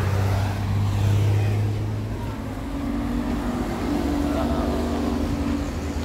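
Motor vehicle engine running steadily: a low hum fades out after about two seconds, and a higher steady drone comes in about halfway through.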